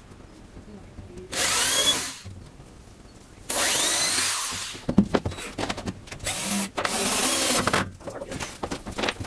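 Power drill running in three bursts of about one to two seconds each, the motor spinning up at the start of each run, with knocks and handling sounds between them.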